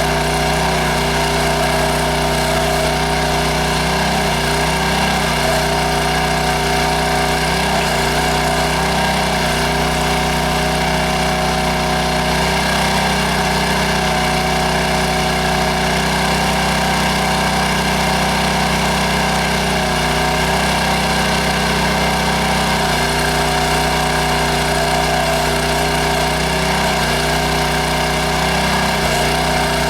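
Towable backhoe's small gas engine running steadily, its pitch dipping briefly several times.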